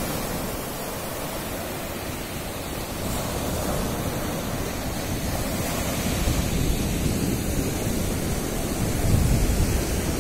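Ocean surf breaking and washing up the sand in a steady rush, growing louder over the second half, with wind rumbling on the microphone.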